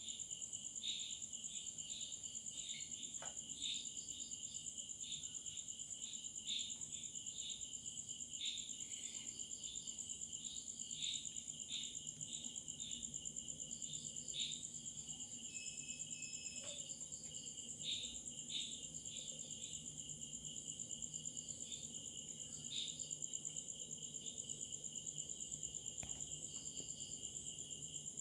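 Night chorus of crickets and other insects: one high, unbroken trill over a lower layer of irregular, pulsing chirps.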